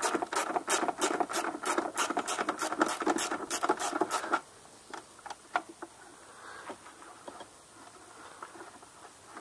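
Footsteps at a brisk pace, about three a second, stopping suddenly about four seconds in, followed by a few light clicks.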